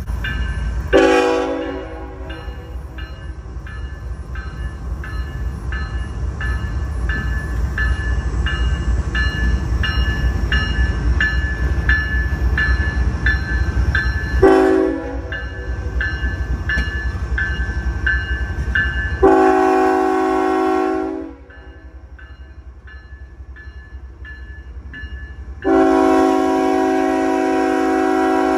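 CSX diesel locomotive's air horn sounding for a grade crossing: a short blast about a second in, a second short blast about halfway through, a longer blast about two-thirds through, and a long blast starting near the end as the locomotive reaches the crossing. Under the first half, a steady low rumble and a regular ticking stop abruptly just before the third blast.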